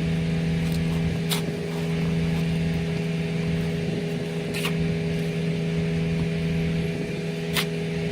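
Heavy machinery engine running steadily with a constant hum. Three sharp clicks or knocks sound about three seconds apart.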